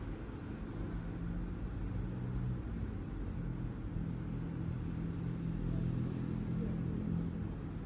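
BMW M1000RR's inline-four engine idling steadily through an Akrapovič exhaust, a low even rumble with no revving.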